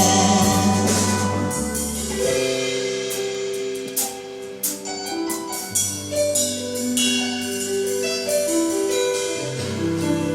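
Pop-jazz orchestra playing an instrumental passage without voices: held bass notes under a moving melody, with drum and cymbal hits about four to six seconds in.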